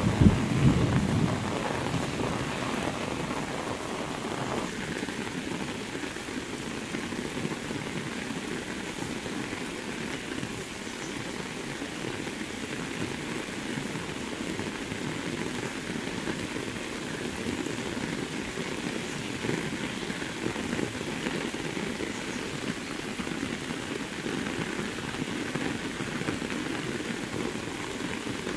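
Very heavy rain falling steadily on a road, grass and plants, an even hiss throughout. A low rumble of thunder fades away over the first second or so.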